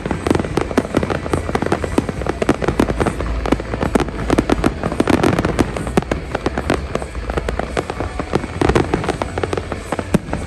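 Fireworks display going off: a rapid, unbroken run of bangs and crackles, many each second, over a low rumble.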